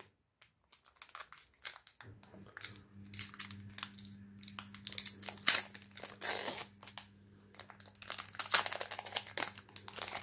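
A foil Duel Masters booster pack being torn open and crinkled by hand, in bursts of sharp crinkling that start about two seconds in.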